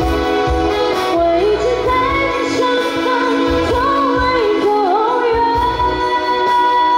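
A woman singing a pop song live through a PA, backed by keyboard and saxophone. She ends on one long held note over the last two seconds.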